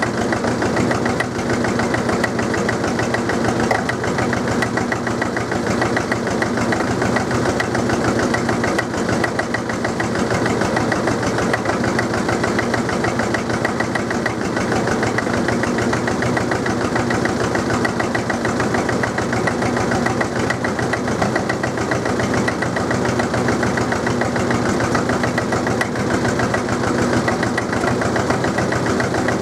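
Drott 100 loader's diesel engine running steadily after a cold start, with a fast, even knocking beat. The engine is still cold and blowing thick white smoke.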